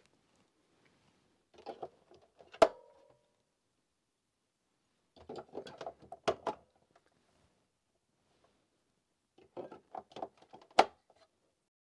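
Batteries being pushed into a toy car's plastic battery compartment: three bouts of scraping and rattling, each ending in a sharp click as a battery snaps into the spring contacts.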